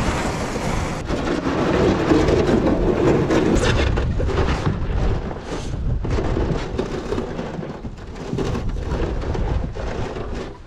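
Aluminum boat hull scraping and grinding over gravel as it is pushed off the shore, with a low rumble and a run of knocks and thuds on the metal hull as someone climbs aboard.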